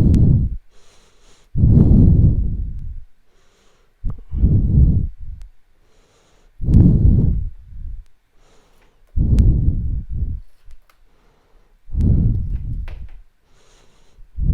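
A person breathing heavily right onto the microphone, one loud breath about every two and a half seconds, with quiet gaps between.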